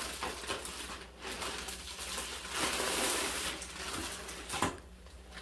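Clear plastic packaging bag crinkling and rustling as it is pulled off a baby bouncer's fabric seat and frame, loudest about three seconds in, with a short knock near the end.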